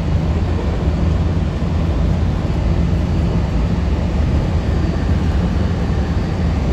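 Steady running noise inside a moving Walt Disney World monorail car: a low rumble and hum from the electric drive and rubber tyres on the beam.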